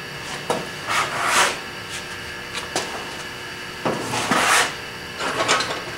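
Several short, rough scraping strokes and a couple of light clicks of metal being worked by hand at a bench vise, over a steady hum.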